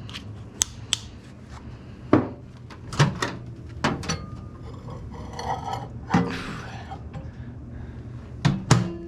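Irregular knocks, clicks and clatter of hard objects being handled and set down, about eight in all, the loudest about two seconds in and twice near the end, over a steady low hum.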